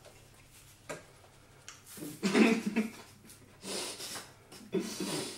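Eating noises from someone with a mouthful of banana: muffled chewing and breath sounds, with a few soft rustles and tears of banana peel as a banana is stripped.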